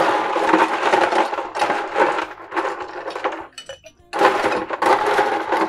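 Ice cubes clattering and clinking as they are scooped from an ice bin and dropped into a tall glass, in two bouts with a short pause about three and a half seconds in.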